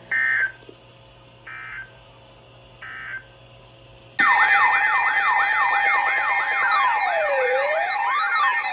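Three short buzzy data bursts of the Emergency Alert System's end-of-message code, marking the close of the weather radio alert. About four seconds in, loud layered electronic sirens begin, with many rising and falling wails over steady tones.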